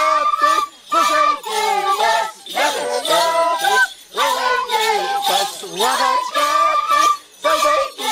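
Andean carnival music: high-pitched voices singing together with end-blown cane flutes playing along. It comes in short phrases with a brief break every one to three seconds.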